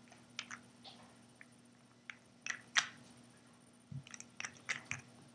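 Faint scattered clicks and light taps of glass nail polish bottles and their caps being handled on a table, about a dozen small ticks with the sharpest near the middle and a quick cluster near the end, over a low steady hum.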